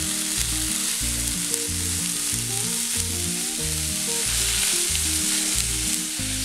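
Drumstick flowers, onion and grated coconut sizzling steadily in hot coconut oil in a kadai while a spatula stirs and tosses them.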